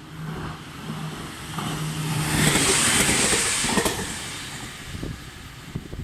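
JR Kyushu 815 series electric train passing close by: the rumble and hiss of its wheels build to a peak about two and a half seconds in, then fade, with a few sharp clacks of wheels over rail joints near the end.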